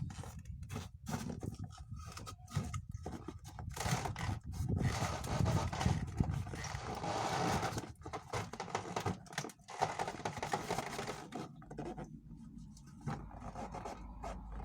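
Irregular scraping, rustling and short knocks of objects being handled and set up by hand.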